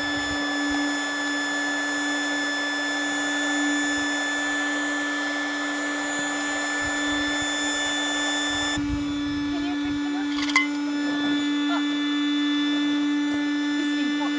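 Small electric air pump running with a steady hum and rush of air as it inflates a rubber boat. The rushing part drops off abruptly about nine seconds in while the hum continues, and there is one sharp click shortly after.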